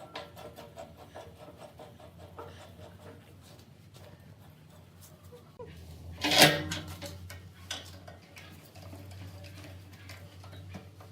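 Hard objects being handled and set down in a workshop: scattered light clicks and knocks, with one loud clatter that rings briefly about six seconds in, over a faint low hum.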